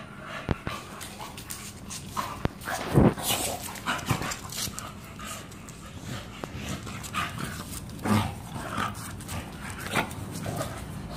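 Two bully-breed dogs play-wrestling at close range: dog vocal noises and scuffling on concrete, with a few short, sharp louder sounds, the loudest about three seconds in.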